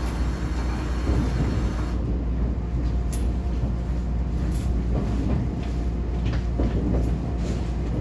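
JR West 125-series electric railcar running along the line, heard from the cab: a steady low rumble with scattered short clicks. A higher hiss over it falls away about two seconds in.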